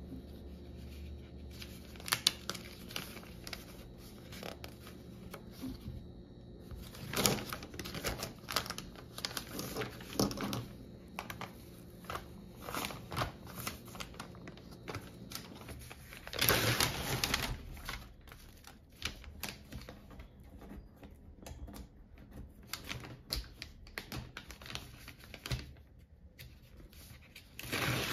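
Paper and thin plastic being handled: a hair-dye kit's instruction leaflet unfolded and plastic gloves unpacked, giving scattered clicks and taps with short bursts of rustling and crinkling, the longest a little past halfway.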